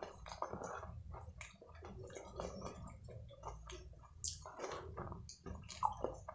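Close-miked wet eating sounds of a man chewing fried rice and chilli paneer, with squelching as his fingers mix and scoop the saucy rice from a plastic tray. Irregular small clicks and smacks.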